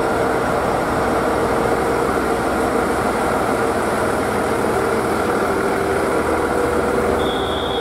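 Diesel railcars idling at a platform, the nearest a KiHa 48: a steady engine drone with a constant low hum. A brief high beep sounds near the end.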